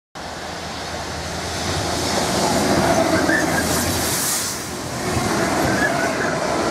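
Freight train of tank wagons passing at speed close by: a steady rumble and hiss of wheels on rail that builds to its loudest about three seconds in, with brief wheel squeals.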